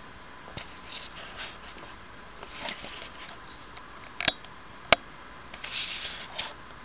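Handheld camera handling noise: scattered rustles and two sharp clicks over a steady hiss.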